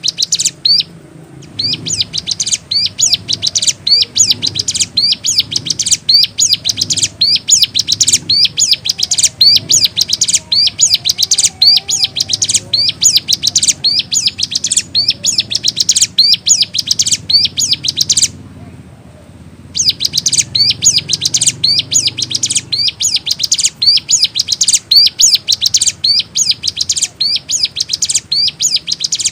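Ciblek gunung singing loudly and continuously in rapid, high, repeated chirping phrases. It breaks off briefly twice, once about a second in and once about two-thirds of the way through.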